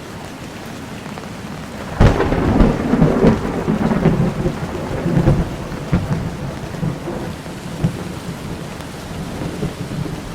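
Steady rain with a thunderclap: a sudden sharp crack about two seconds in, then rumbling that rolls on and slowly dies away over several seconds.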